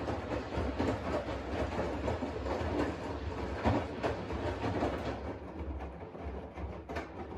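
Washing machine running: a steady low motor hum with an irregular clatter of clicks and knocks over it. The higher part of the sound thins out about five seconds in.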